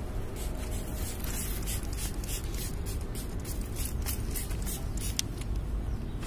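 Plastic trigger spray bottle spritzing tyre polish onto a car tyre: a quick run of short hissing sprays, about three a second, over a steady low rumble.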